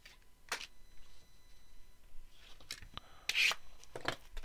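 Trading cards and clear plastic card holders being handled: a few short rubbing, sliding scrapes, the loudest about three and a half seconds in.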